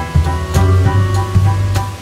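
Background music with a steady beat, short repeated melody notes and a bass line.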